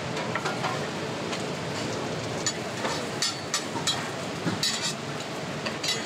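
Scallion pancakes frying at a street-food stall: a steady sizzle with a scatter of sharp clicks and taps of cooking utensils, most of them in the second half.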